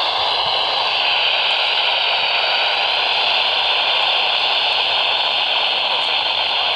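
Steady hiss of radio static from a receiver, with no voice or alert tone coming through.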